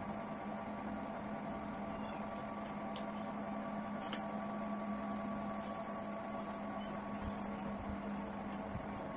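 Steady electrical hum with a few faint clicks and mouth sounds of eating by hand. The sharpest click comes about four seconds in, as a piece of chicken is bitten.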